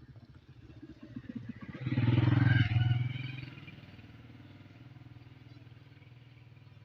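An engine running with rapid firing pulses, growing loud about two seconds in and easing back to a steady lower level after about three and a half seconds.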